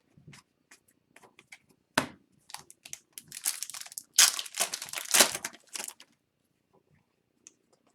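Plastic wrapper of an Upper Deck hockey card pack being handled and torn open. A few small clicks lead to a sharp snap about two seconds in, followed by a couple of seconds of dense crinkling.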